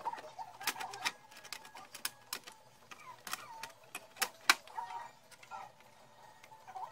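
Sharp clicks and knocks of a TV's circuit board and metal housing being handled and fitted together, scattered irregularly, with the loudest knock a little past the middle.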